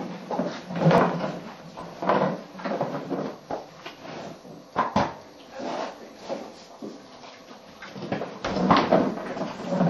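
Hollow plastic Jolly Ball, holed and loaded with carrots, being nosed and rolled about by a horse. It knocks and bumps irregularly against a wooden stall wall and a concrete floor, with sharp knocks about a second in and about five seconds in and a busier run of bumps near the end.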